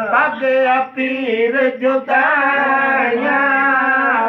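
A man singing a devotional naat without instruments, in long, wavering held notes with ornamented turns, breaking briefly for breath about one and two seconds in.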